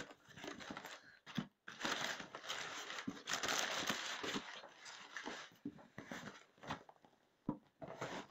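Crumpled brown kraft packing paper rustling and crinkling as it is pulled out of a cardboard box, loudest in a long stretch around the middle, with a few light knocks against the cardboard.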